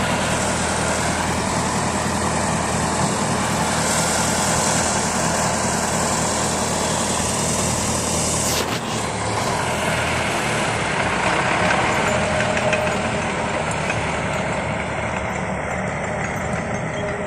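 DT-75 crawler tractor's diesel engine running steadily, with a single short click about halfway through.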